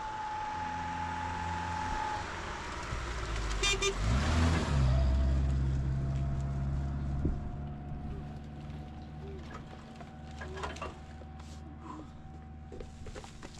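An engine rising in pitch about four seconds in, then running steadily, after a steady high tone in the first two seconds.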